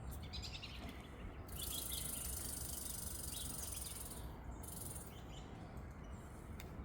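High-pitched steady insect buzz that comes in about a second and a half in and stops about three seconds later, with scattered short bird chirps over a low outdoor rumble.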